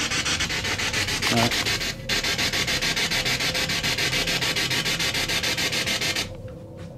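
Spirit box, a radio sweeping rapidly through stations, putting out loud static chopped into rapid, even pulses. It drops out briefly about two seconds in and cuts off abruptly about six seconds in, as it is switched off.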